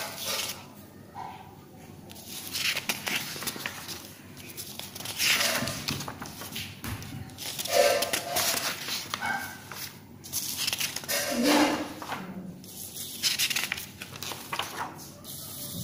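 Sheets of drawing paper rustling as a hand turns the pages of a stack one after another, in several separate bursts.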